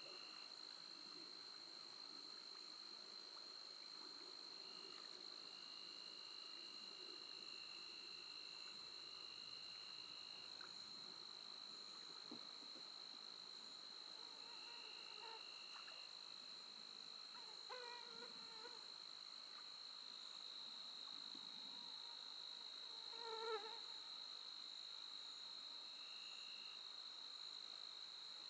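Faint evening insect chorus: a steady high-pitched drone, with a second, lower trill coming and going for a few seconds at a time. A short animal call sounds twice, near the middle and again a few seconds later, the second one louder.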